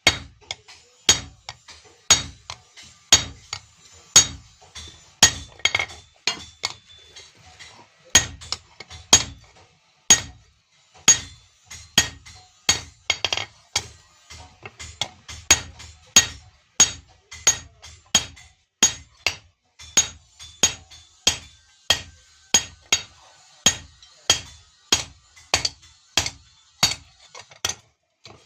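Hand hammer striking iron on an anvil in a steady rhythm, close to two blows a second, each with a short metallic ring: a blade being forged by hand.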